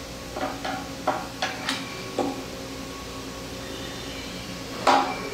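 A string of short metal clinks and knocks from steel vise parts being handled and set in place, about six in the first two seconds and a louder knock near the end.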